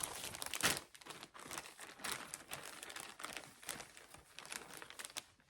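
Soft, irregular rustling and crinkling as pre-cut fabric quilt pieces are picked up, shuffled and laid out by hand.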